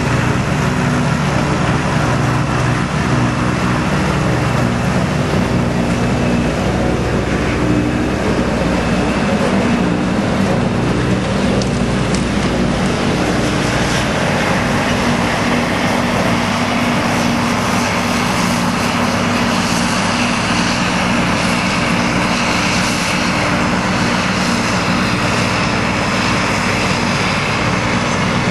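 Steady heavy diesel drone of a New Holland FX300 self-propelled forage harvester at work, mixed with a New Holland tractor's engine as it tows a silage trailer close alongside.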